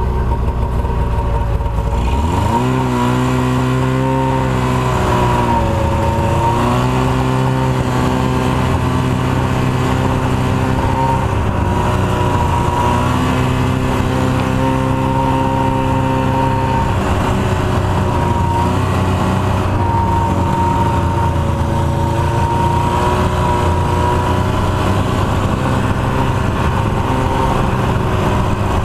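1989 Ski-Doo Formula Plus snowmobile's two-stroke engine under way. It revs up sharply about two seconds in, then runs at high revs, with its pitch dipping and climbing again several times as the throttle eases off and opens.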